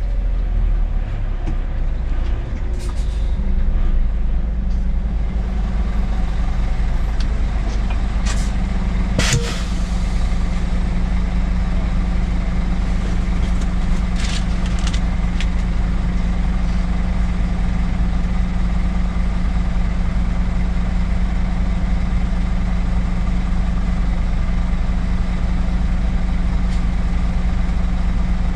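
Scania S500 truck's V8 diesel running steadily at low speed, heard from the cab, as the truck pulls up and stops, then idles on. A few short sharp hisses or clicks come over it, the clearest about nine seconds in.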